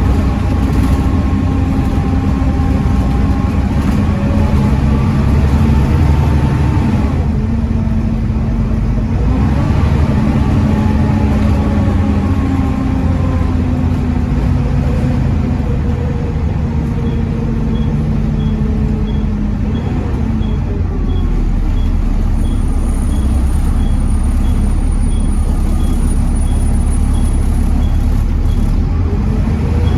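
Volvo D7C 7.3-litre diesel engine of a Volvo B7TL double-decker bus running under way, with a ZF Ecomat five-speed automatic gearbox. The engine note rises and falls several times, with a clear drop about seven seconds in.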